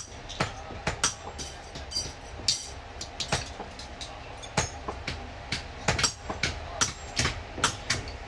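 Irregular sharp metal taps and clicks, about one or two a second, as small steel lock parts are handled and fitted with hand tools on a steel block, over a steady low workshop hum.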